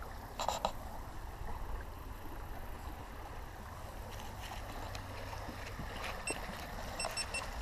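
Shallow creek water running over rocks, with a steady low wind rumble on the microphone. A few short, high chirps sound near the end.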